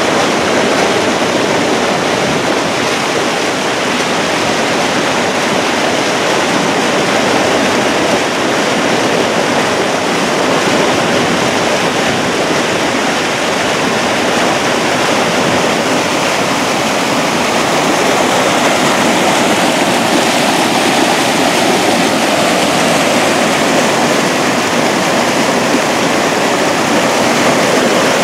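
A river in flood rushing steadily over a low dam and through whitewater rapids, a loud, unbroken rush of water.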